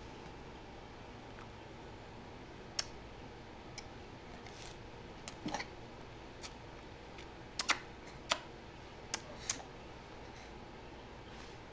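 Kissy noises: about ten short, sharp lip-smacking clicks at irregular spacing, the loudest a little after halfway.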